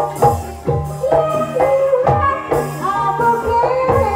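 Javanese gamelan music for an ebeg dance: drum strokes that bend down in pitch, with sustained pitched instruments and a singing voice over them.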